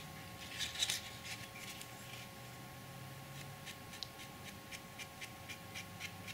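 A fine paintbrush scratching and dabbing over the embossed stones of a card model arch as a wash is brushed on, with a brief louder scratch about a second in and faint irregular ticks after it.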